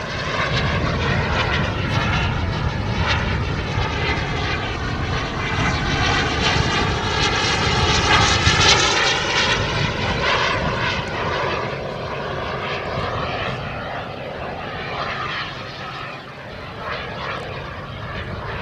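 Turbine engine of a radio-controlled model F-16 jet flying past overhead, a rushing whine that swells to its loudest about eight seconds in and then fades as the jet moves away.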